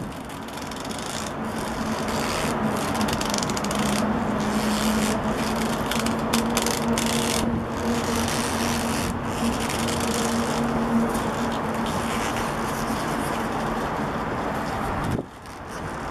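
Leather rubbing and scraping as gloved hands work a braided leather bullwhip and its handle, over a faint steady hum.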